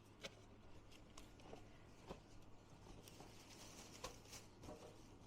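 Faint handling of an oven toaster's packaging: scattered light clicks and taps with a brief soft rustle a little past the middle, over a low steady hum.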